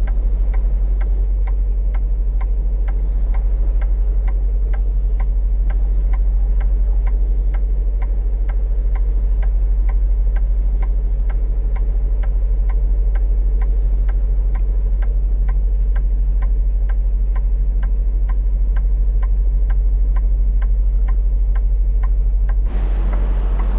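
Semi truck engine idling, a deep steady hum, with a regular ticking about twice a second. The ticking stops near the end and a rush of noise starts.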